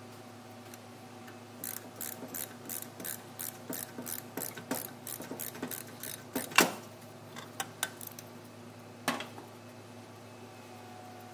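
Ratchet wrench with a socket extension clicking in quick strokes, about three clicks a second, as it turns a bolt on a horn bracket. A single sharp metallic knock comes about six and a half seconds in, the loudest sound, followed by a few scattered clicks.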